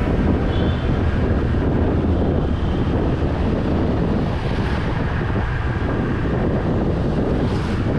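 Wind rumbling steadily on the microphone while riding a Honda SH 150 scooter, with the scooter's engine and tyre noise underneath.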